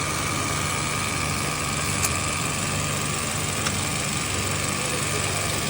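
Steady mechanical hum of workshop machinery with a faint whine, unchanging throughout, and two faint ticks in the middle.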